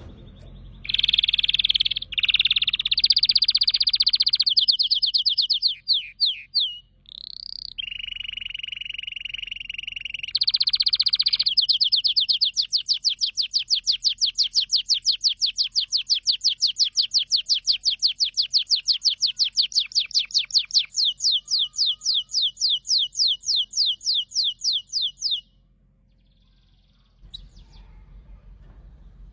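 Canary singing: a string of varied high, bright phrases, then a long run of rapid, evenly repeated notes lasting about thirteen seconds. The song breaks off a few seconds before the end.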